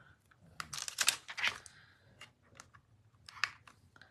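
A clear stamp sheet and its clear plastic case handled by hands: light, irregular plastic clicks and rustles, a cluster about a second in and another near the end.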